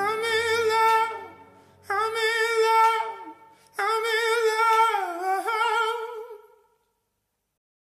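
The ending of a background song: a voice holds three long wavering notes with vibrato, the last one dipping in pitch and fading out about two-thirds of the way through.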